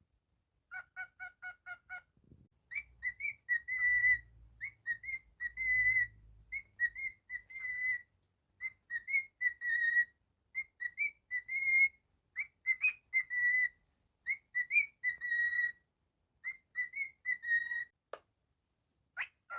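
Cockatiel whistling: a quick run of about seven short chirps, then a long string of repeated whistled phrases at much the same pitch, each about a second long. A single sharp click near the end.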